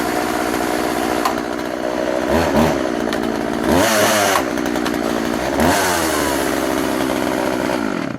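Husqvarna 141 40cc two-stroke chainsaw running, revved up and back down three times, then shut off near the end.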